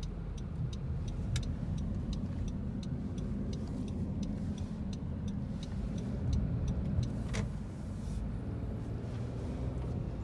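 A car driving, with a steady low road and engine rumble. Light ticks repeat evenly about three times a second, and there is one sharper click about seven seconds in.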